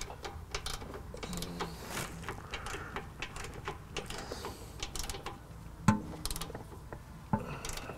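Ratchet wrench clicking in quick runs as bolts are tightened, with a couple of sharper, louder clicks near the end.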